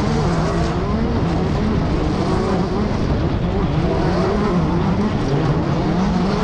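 Class 10 off-road race car engine running hard, its pitch rising and falling again and again as the throttle is worked over rough desert terrain.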